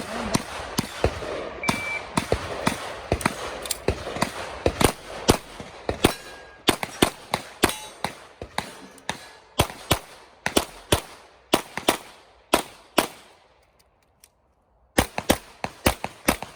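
Glock 34 9mm pistol fired in fast strings of shots, dozens in all. The shooting breaks off for about a second and a half near the end, then resumes in another rapid string.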